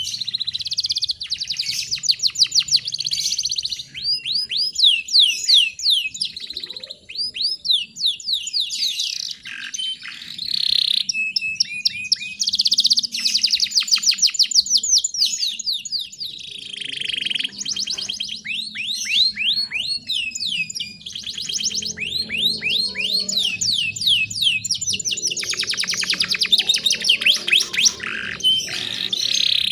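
Canary singing: fast rolling trills of rapidly repeated high sweeping notes, in phrases broken by short pauses.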